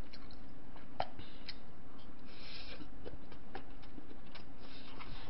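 Eating sounds: chewing of cold ramen noodles with scattered light clicks of chopsticks against a paper cup, and a couple of brief soft hissing slurps. A steady low hum runs underneath.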